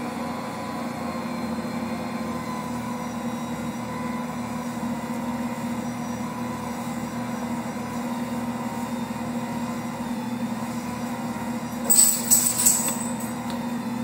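Ankarsrum stand mixer running at its lowest speed, kneading a heavy bread dough with the dough hook: a steady motor hum with a low, uneven throb underneath. About twelve seconds in, a short burst of sharp clattering knocks rises above the hum.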